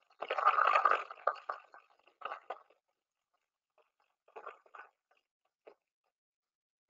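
Ultrasound recording of partial discharge inside a 6.6 kV high-tension motor's winding, picked up by a structure-borne sensor on the motor body and brought down to the audible range: irregular bursts of crackling. The longest burst comes in the first second and a half, with shorter ones about two, four and a half and five and a half seconds in.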